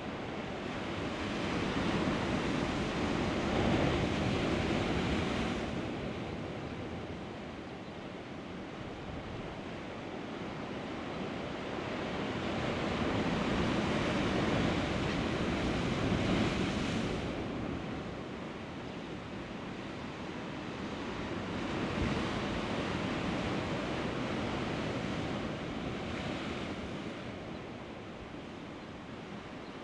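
Sea waves washing against shore rocks, surging and falling back in three swells about ten seconds apart.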